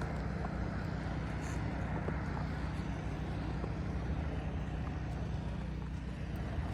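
A motor vehicle's engine running steadily with a continuous low rumble and a haze of road noise.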